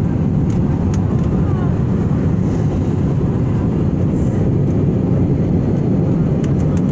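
Steady cabin roar of an Airbus A320-family jet airliner in flight, heard at a window seat: engine and airflow noise holding an even, deep rush.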